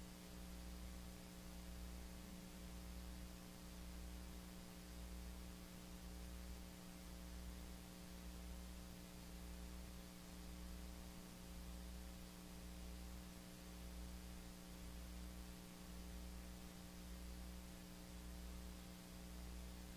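Faint electrical hum and hiss with no speech: a few steady hum tones over a low throb that pulses about once a second.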